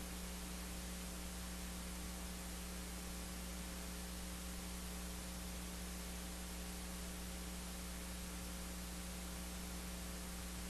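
Steady electrical mains hum with hiss from the sound or recording system, unchanging and with no other sounds.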